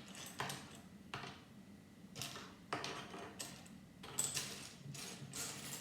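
Small plastic Lego pieces clicking and clattering as they are handled and sorted by hand, with a few sharp clicks at a time, coming more often near the end.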